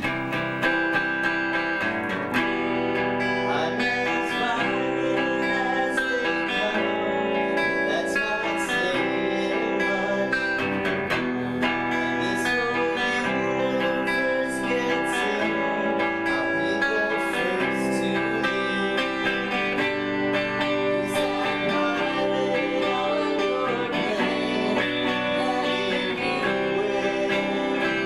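Live band playing a song led by strummed guitar chords, with no drums.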